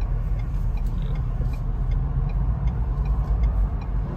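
Steady low road and traffic noise inside the cabin of a 2021 Ford Bronco moving slowly with its soft top folded back, the open roof letting the outside noise in.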